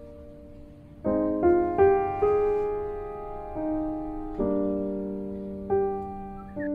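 Background piano music: slow chords struck every second or so, each left to ring and fade.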